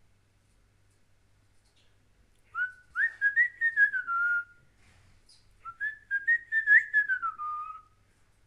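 A person whistling two short phrases, each about two seconds long, the tone wavering up and down before gliding down at the end.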